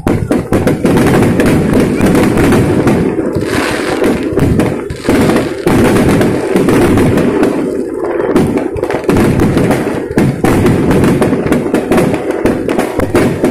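Aerial firework shells bursting in quick succession, a dense, unbroken run of overlapping bangs and crackles.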